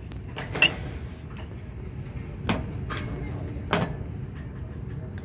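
Drinking glasses clinking and knocking against each other and the shelf as they are picked up and handled, a few sharp clinks over a steady low store hum.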